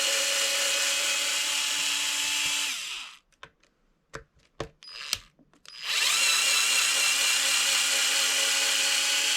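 Cordless power driver spinning steadily as it backs screws out of an RC car chassis. It winds down about three seconds in, a few light clicks follow, then it spins up again about six seconds in and keeps running.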